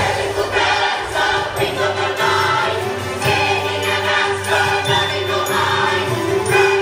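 Recorded music: a choir singing over a steady held note.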